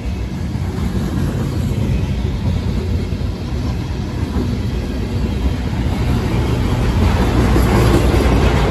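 Intermodal freight train cars rolling past at close range: a steady rumble of steel wheels on the rails, growing louder near the end.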